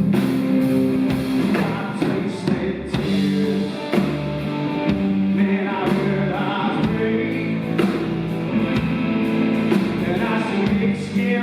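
Live band playing an Americana rock song with guitars and drums at a steady beat; the music runs between sung lines.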